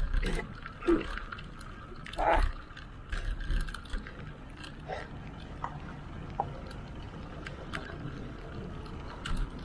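Wind rushing over the microphone of a rider moving along a highway, with road traffic noise and a few short bumps in the first couple of seconds.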